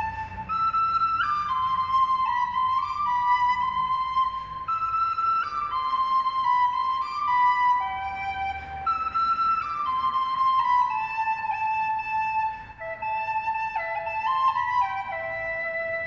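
Music: a solo flute-like melody, one note at a time, stepping up and down.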